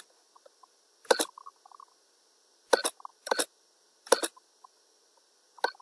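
Computer mouse clicking several times at irregular intervals, sharp short clicks.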